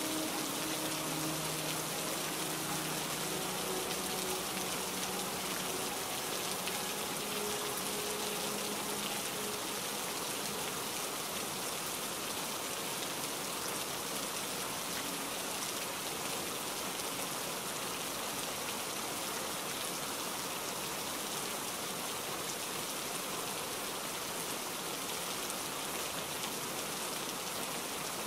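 Steady heavy rain: an even, unbroken hiss of falling drops.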